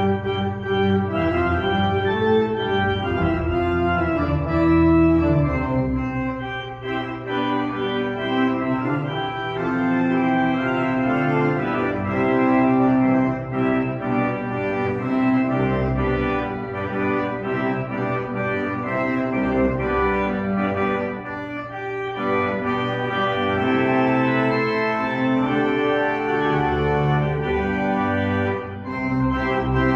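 Church organ playing a prelude: slow sustained chords over a held low bass note, pausing briefly between phrases.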